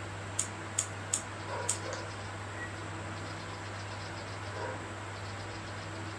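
Four short, sharp clicks in the first two seconds over a steady low hum, with faint quick high ticking around the middle.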